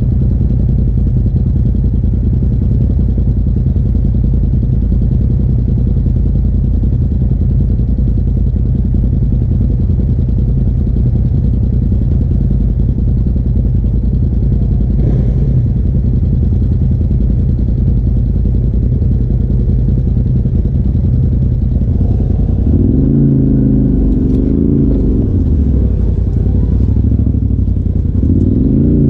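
Polaris RZR side-by-side engine idling steadily, close by. For the last several seconds it revs, its pitch rising and falling as the machine is driven.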